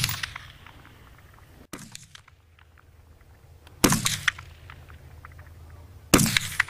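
AR-15-type rifle firing single shots: the tail of one at the very start, then two loud shots about four and six seconds in, each dying away over about half a second.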